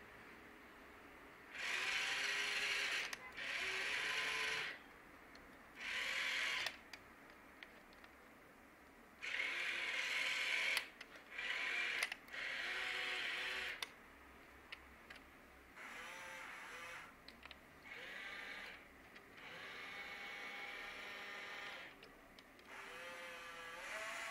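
Small electric motors and plastic gearing of a toy excavator whirring in short runs of one to two seconds, stopping and starting again about ten times, the pitch rising as each run starts; the later runs are quieter.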